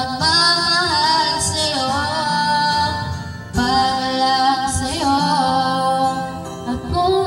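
A woman singing videoke into a microphone over a backing track, with a short pause between lines about halfway through.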